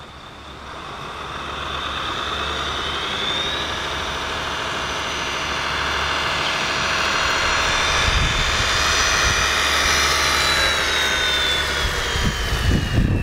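Radio-controlled model Scania truck with a tipper trailer driving past: a high electric motor and gearbox whine that grows louder as it approaches, rising in pitch about three seconds in and sliding down after about ten seconds, with a few low thumps near the end.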